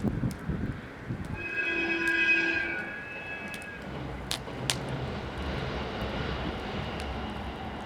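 Engine noise of a passing vehicle, with a brief high whining tone about one and a half seconds in, the loudest part, then a low steady hum. A few sharp pops from the wood campfire come over it.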